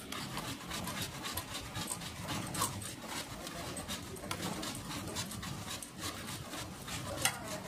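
Quick, irregular scrubbing strokes on a Pulsar NS 160's drive chain as it is cleaned of dust and grime by hand.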